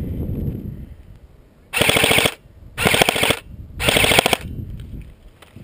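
Airsoft rifle firing three short full-auto bursts, each about half a second of rapid shots, about a second apart. Before them, a low rumble fades out in the first second.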